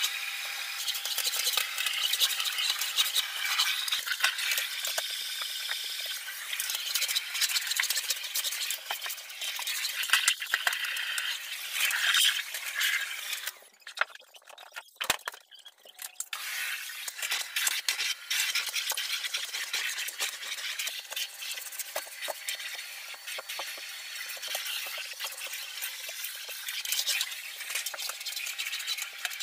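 Bagless canister vacuum cleaner running, a steady rushing suction with a faint motor whine. It drops away for a couple of seconds about halfway, with a click, then comes back.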